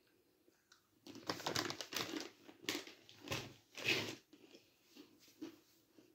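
A milk-chocolate-coated pretzel being bitten and chewed, with a run of sharp, crackly crunches starting about a second in and lasting about three seconds, then softer chewing crunches.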